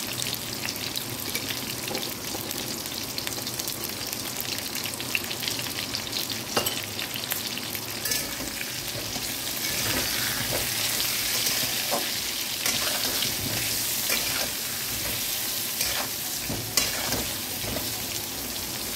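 Potato chunks frying in oil in a metal wok, a steady sizzle that grows a little louder partway through. A metal spatula stirs them, with several sharp scrapes and clacks against the pan.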